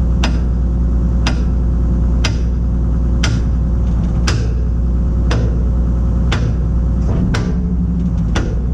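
Hammer blows on steel, about one a second and nine in all, driving a bucket pin of a Kobelco SK250LC excavator through its shims. The excavator's diesel engine runs steadily underneath.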